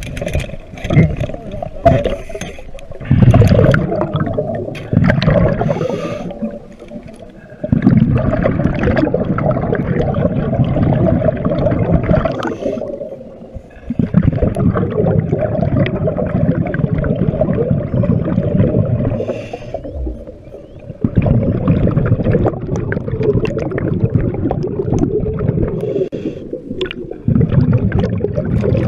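Underwater bubbling and water rush picked up by a diver's camera: a low rumbling gurgle in stretches of four to six seconds, with short breaks between them.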